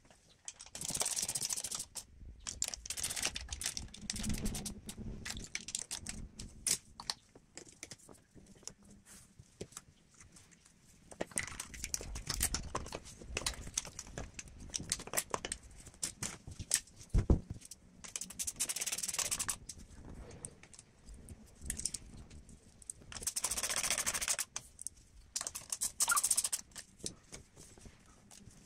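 Hand tools and metal engine parts being handled: irregular clicks, light knocks and rattles, with a few short hissing bursts about a second long.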